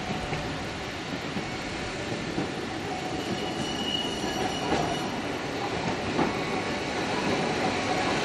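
Toei 7000-series tram with nose-suspended (tsurikake) traction motors approaching on street track, its running noise growing louder. A brief wheel squeal comes about four seconds in, followed by a few clicks from the wheels on the rail.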